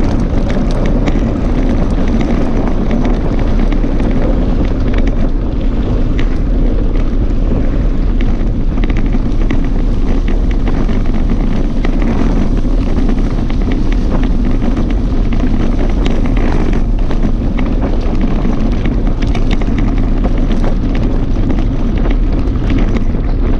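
Mountain bike rolling fast over a gravel track: steady wind rush on the camera microphone over the crunch of tyres on loose stones, with frequent small clicks and knocks from the gravel and the bike.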